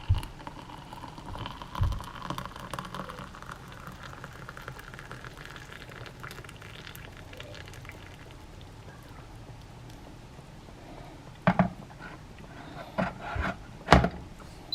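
Just-boiled water poured from the short stainless steel spout of a Greecho electric kettle into a mug, a steady splashing pour for several seconds that then fades out. A few sharp knocks near the end.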